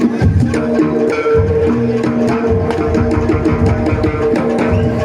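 Live jaranan ensemble music: dense, fast drum and struck-percussion strokes over held pitched notes.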